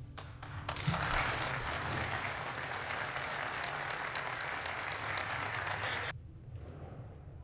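A crowd applauding. The clapping builds up within the first second, holds steady, and cuts off abruptly about six seconds in.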